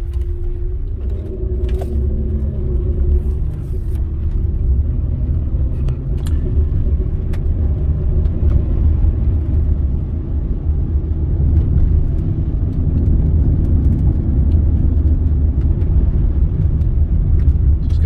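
Cabin sound of a 2007 Honda Ridgeline's 3.5-litre V6 and tyres while driving straight at about 40 mph: a steady low rumble, with a faint humming tone in the first few seconds.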